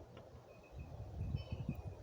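Faint low bumps and knocks of hands working a small board at a soldering bench, starting a little under a second in, with a few faint high chirps in the background.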